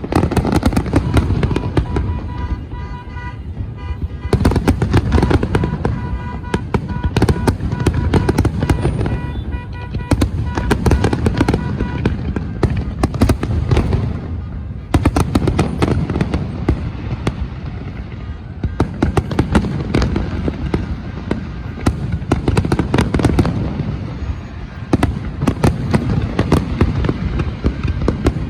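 A fireworks display: a dense, continuous run of bangs and crackling bursts. Steady pitched tones, most likely music, sound under the bangs during roughly the first twelve seconds.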